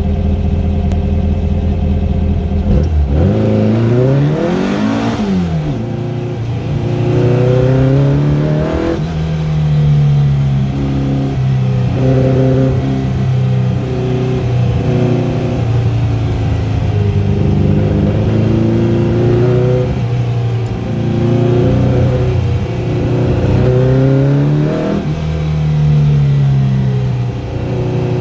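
1955 VW Beetle's air-cooled flat-four engine heard from inside the car: idling, then revving hard as it launches about three seconds in, pitch climbing steeply before dropping at a shift. It then rises and falls in revs again and again as the car is driven hard through the corners.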